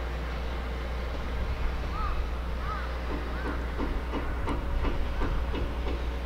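Shipyard ambience at a dry-docked ship under hull repair: a steady low rumble with a faint steady hum. About two seconds in come a few short chirps, then a quick run of short knocks, several a second, for about three seconds.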